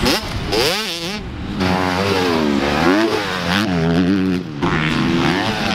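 Dirt bike engines revving, more than one bike at a time, their pitch climbing and dropping again and again as the throttle opens and closes.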